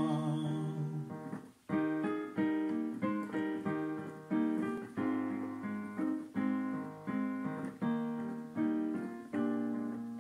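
Piano playing the closing bars of a hymn with no singing: a held chord fades out, then after a short break a slow run of struck chords follows, each left to ring and die away.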